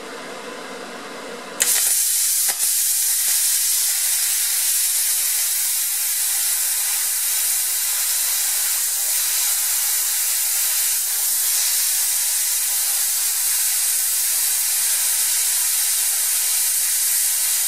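Eastwood Versa Cut 60 plasma cutter cutting 3/4-inch steel bar: after a quieter steady hum, the arc strikes with a sudden loud hiss a little under two seconds in and then runs on evenly as the torch cuts through.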